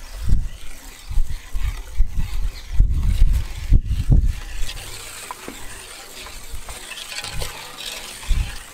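A wire whisk stirring thick chocolate brownie batter in a large aluminium pot. Low, irregular thumps fill about the first four seconds, then a softer swishing hiss.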